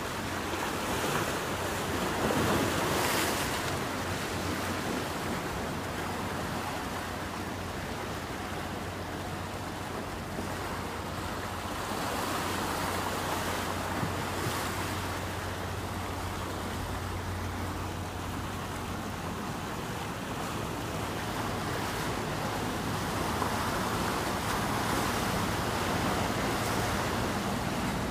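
Water rushing and splashing past a moving ship's hull, with gusts of wind on the microphone and a steady low engine hum underneath.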